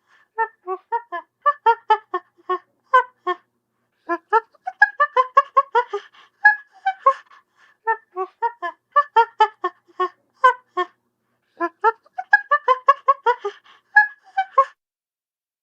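A group of chimpanzees giving rapid runs of short pitched grunts and pants, several animals overlapping, in bouts with brief pauses. These are food grunts from a group gathering food. The calls stop about a second before the end.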